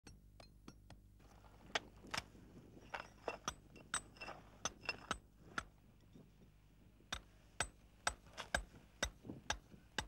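Irregular sharp clicks and clinks of small hard objects, about two or three a second, some with a brief high ringing tone, over a faint low steady hum.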